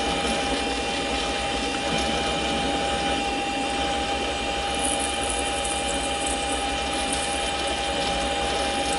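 Mini lathe running steadily with a constant whine while a spring-holder parting blade cuts off a 1-1/4 inch 1018 steel rod. Faint scratchy high-pitched sounds come and go from about halfway through.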